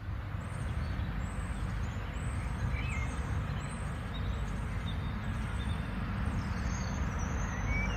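Outdoor background: a steady low rumble, with a short high chirp repeating about once a second and a couple of other bird chirps over it.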